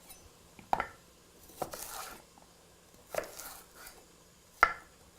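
Kitchen knife chopping vegetables on a cutting board: four separate strokes, a second or more apart, the last one the sharpest and loudest.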